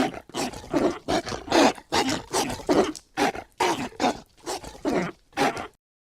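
Shin Godzilla creature sound effect: a rapid string of short, guttural vocal bursts, a little over two a second, breaking off just before the end.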